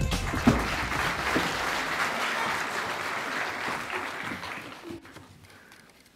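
Audience applauding, the clapping fading away over about five seconds.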